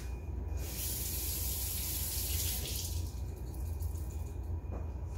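Kitchen sink tap running for about two seconds, starting about a second in, as an onion is rinsed under the water, then fading out.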